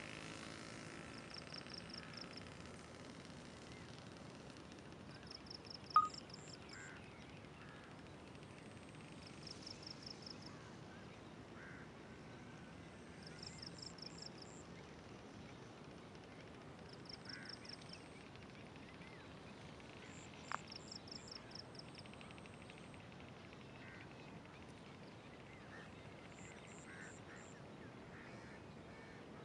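Faint countryside dawn ambience over a steady hiss: a high-pitched call made of rapid pulses repeats every three to four seconds, with fainter, lower animal calls between. Two sharp clicks stand out, the louder one a few seconds in and the other about twenty seconds in.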